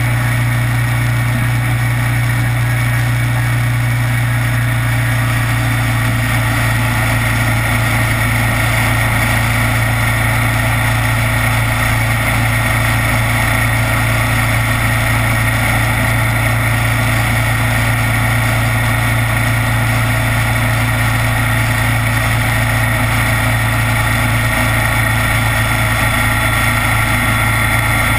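Kawasaki Vulcan 900 motorcycle's V-twin engine running on the move, a loud steady drone at an unchanging pitch.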